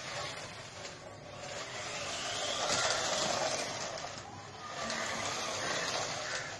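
Homemade wooden RC Jeep's small electric motor and gears whirring and its tyres rolling on a concrete floor as it drives fast, growing louder twice as it comes close.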